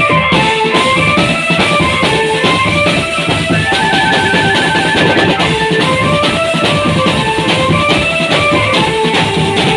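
Marching drum band playing: steady drumming under a melody of quick stepping notes.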